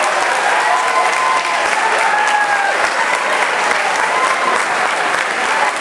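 Audience applause: many hands clapping densely and steadily, with voices cheering over it.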